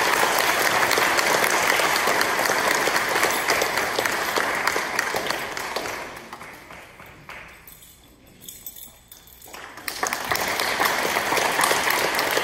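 Audience applauding. The clapping dies away about seven seconds in, then starts up again about two seconds later.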